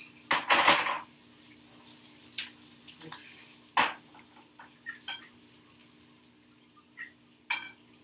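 A metal frying pan and cooking utensils clattering and knocking on a gas stovetop, the loudest clatter about half a second in, then a handful of separate knocks. A low steady hum runs underneath.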